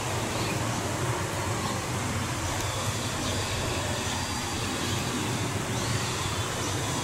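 Steady outdoor background noise: a continuous rushing hiss over a low rumble, with no distinct events.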